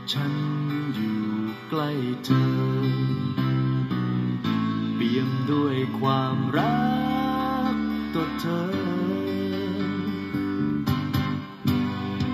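Recorded guitar-led music with a singing voice, playing from a CD on a Victor UX-Z11WMD micro component system through its speakers; the CD player is playing normally.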